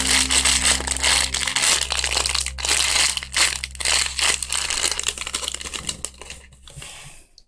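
Plastic packaging crinkling as it is handled, in dense irregular crackles that thin out and fade near the end.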